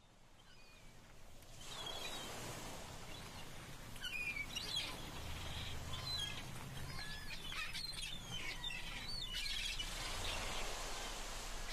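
Several small birds chirping and singing over a steady outdoor background hiss, fading in over the first couple of seconds.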